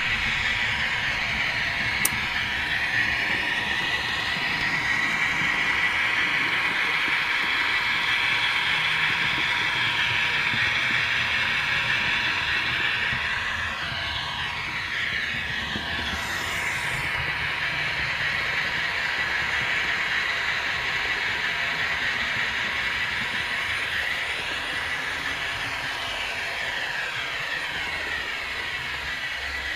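H0-scale model train running on its track: a steady whine of the small motor and gearing with rolling wheel noise on the rails, its pitch drifting up and down now and then. A single sharp click sounds about two seconds in.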